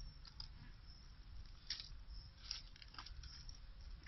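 Faint, irregular crackles and rustles of monkeys breaking open and chewing lotus seeds, a few sharper snaps among them, over a low steady rumble.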